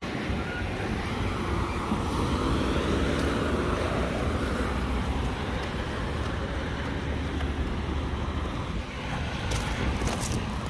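Straight-piped Cummins ISX inline-six diesel of an International ProStar semi truck running with a low, steady rumble, with wind on the microphone.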